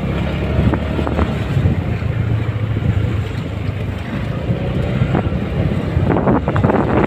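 Motorcycle engine running steadily under wind buffeting the microphone while riding, with a few short knocks from the bike going over a broken, potholed road surface.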